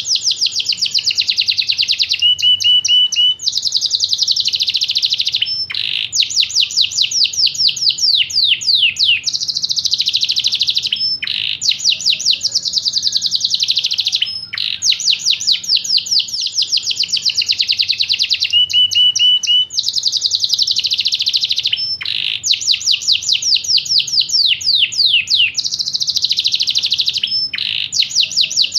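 Yorkshire canary singing a long, nearly unbroken song. It alternates fast trills of rapidly repeated notes with dense warbling stretches and a few short held notes, with only brief breaks between phrases.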